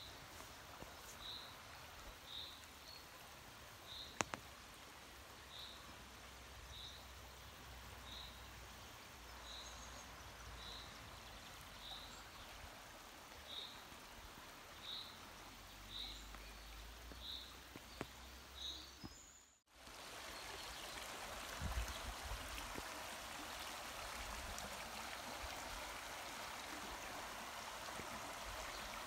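Shallow stream running over rocks, with a small bird repeating a short high call about once a second and one sharp click about four seconds in. After a sudden break about two-thirds of the way through, the stream rushing is louder and steady.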